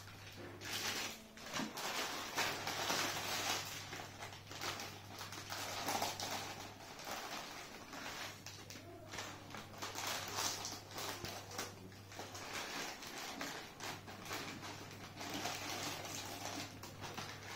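Crinkling and rustling of small plastic snack pouches being handled and snipped open with scissors, a dense run of crackles that comes and goes. A low steady hum runs under it and drops out a few times.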